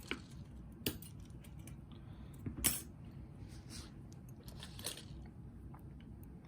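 Small metallic clicks and clinks of tweezers handling the pins of a disassembled lock: a few sharp taps, the loudest about two and a half seconds in.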